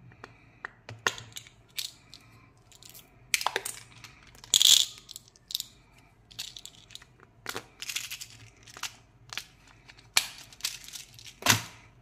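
Small clear plastic candy container of candy-coated chocolates being handled and opened: a string of irregular plastic clicks, scrapes and rustles, the loudest about a third of the way in and again near the end.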